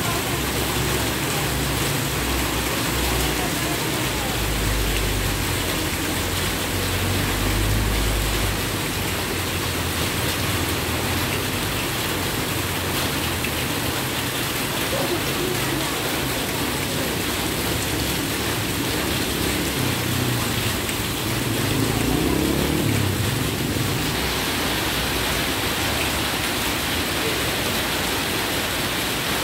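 Heavy rain falling steadily onto a flooded street, with motorcycles riding through the standing water. Passing engines swell under the rain through the first several seconds and again about twenty seconds in.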